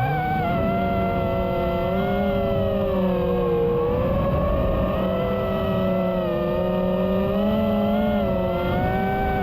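The brushless 1960KV motors and propellers of a GEPRC Mark 5 FPV quadcopter whining in flight. The pitch rises at the start, then holds with small swells and dips as the throttle changes.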